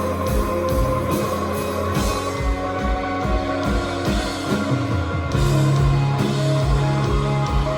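Rock band playing live: guitar over a held bass line and a steady drum beat, getting louder about five seconds in.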